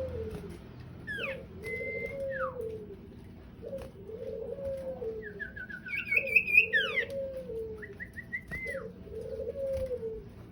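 Birdsong: a dove cooing in a steady repeated low note about every second and a half, with a sirtu songbird's whistled slurs, a quick trill and a burst of chatter over it, loudest about six to seven seconds in.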